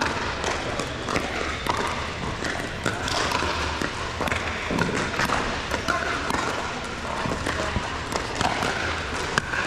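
Basketball game ambience in a gym: indistinct voices and crowd chatter, with scattered sharp knocks and thuds of a ball bouncing on the court.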